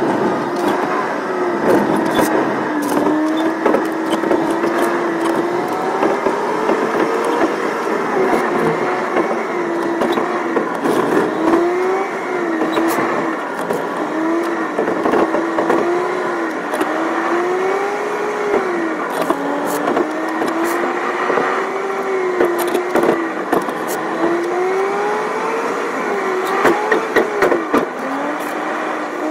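Car engine and road noise heard from inside the moving car's cabin with the windows slightly open. The engine note keeps rising and falling as the car drives down the winding road.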